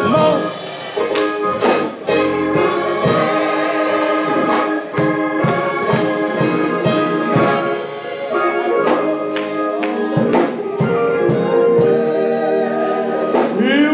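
Church band music playing at full level, with a steady beat.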